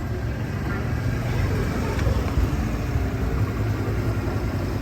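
Steady low rumble of a motor vehicle's engine running close by in street traffic.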